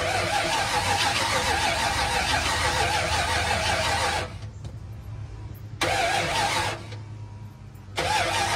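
Starter of a 1987 Ford Ranger's swapped-in 302 V8 cranking the cold engine in three bursts: one of about four seconds, then two short ones of under a second. The level falls right back after each, so the engine does not keep running.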